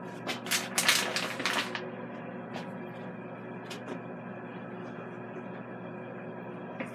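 Cosori air fryer oven preheating with its fan on high, a steady hum. A rustling clatter of handling starts just after the beginning and lasts over a second, followed by a couple of faint clicks.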